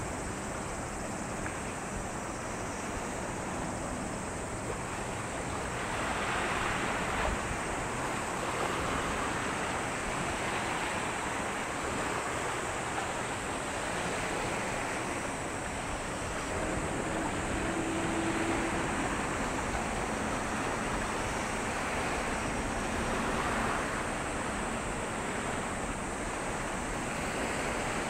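Sea water washing and surging in waves with wind over it, swelling and easing every few seconds. A faint low hum comes in a little past halfway.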